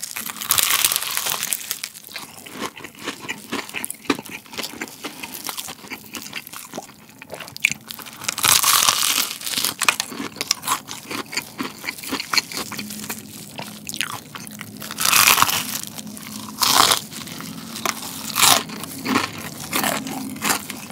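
Close-up crunching and chewing of crispy fried chicken whose crust is coated in garlic flakes and breadcrumbs, with louder crunchy bites every few seconds.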